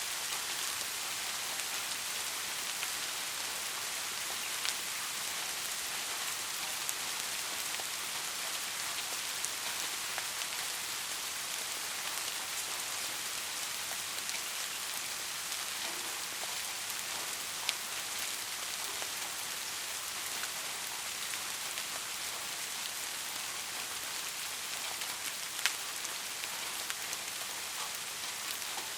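Steady rain falling, an even hiss with scattered sharper drop ticks, a few louder single drops standing out.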